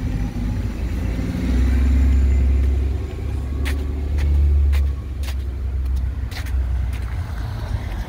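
Low rumble of a car passing on the street, swelling for a few seconds, followed by a series of sharp footstep clicks on the sidewalk.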